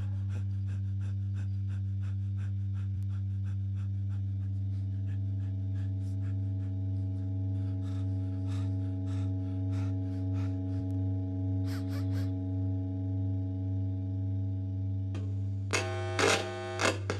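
A steady low electrical hum with faint, irregular crackling ticks. Near the end a louder, buzzier tone joins it in short pulses.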